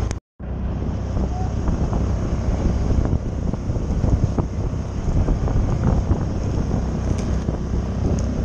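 Wind buffeting the microphone, with water rushing and splashing along a small sailing yacht's hull as it moves through choppy water.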